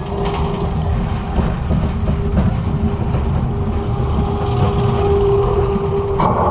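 Roller coaster train running on its steel track: a continuous heavy low rumble with a steady humming tone over it that stops shortly before the end.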